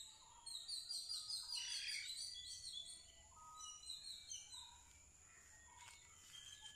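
Birds chirping: a quick run of high chirps from about half a second in to two and a half seconds, then scattered lower whistled notes, over a faint steady high tone.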